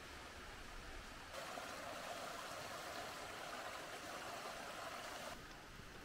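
Mountain stream running, a steady rush of water that starts suddenly about a second in and cuts off suddenly near the end.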